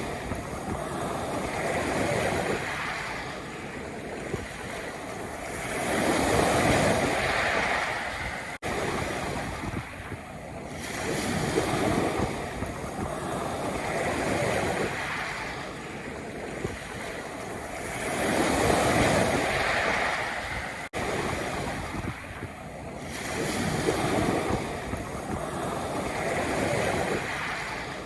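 Sea waves breaking and washing over a pebble beach, swelling and fading about every six seconds.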